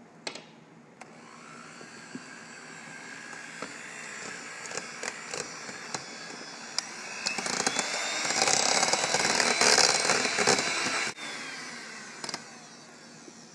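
Electric mixer with a single beater whipping a thick, half-set wax batter for wax melts, working air into it. The motor runs steadily and grows louder, with a rising whine through the middle and scattered clicks of the beater, then drops off suddenly near the end and fades.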